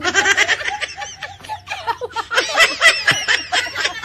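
Laughter from several overlapping voices, breaking out suddenly and continuing in quick high-pitched bursts.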